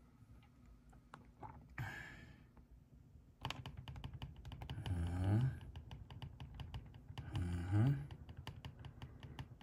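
Quick run of small plastic clicks, typical of a wall thermostat's buttons being pressed repeatedly to turn the heat up. It starts about three and a half seconds in, and a short, low, rising sound comes through it about every two and a half seconds.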